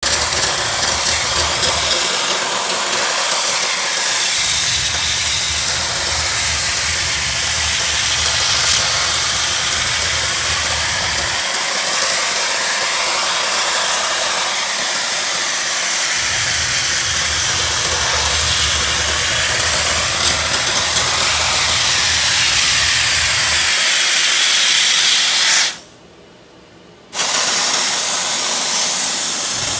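Optima Steamer CMF's wet-steam jet hissing steadily as it flushes out a mini-split air conditioner, with a low hum that comes and goes. The sound cuts out abruptly for about a second near the end.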